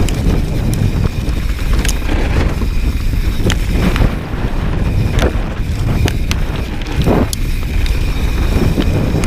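Mountain bike descending a dry, rocky dirt trail: wind buffeting the microphone over the steady rumble of the tyres on dirt and gravel. Scattered sharp clicks and knocks run through it as loose stones are flicked up by the tyres and strike the bike.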